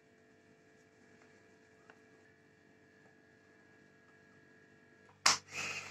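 A faint steady electrical hum, then near the end a sudden loud thump and a short scuffing rustle as a ball of potato dough is patted flat by hand on the floured tabletop.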